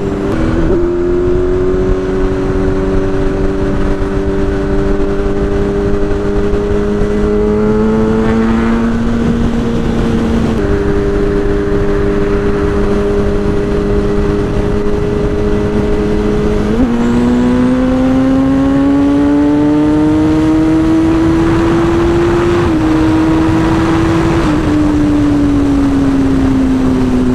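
Kawasaki ZX-10R's 1000cc inline-four engine running at freeway speed, with a steady rush of wind and road noise. The engine note holds fairly level, shifts in pitch about ten seconds in, then climbs steadily from about seventeen seconds as the bike accelerates, easing back near the end.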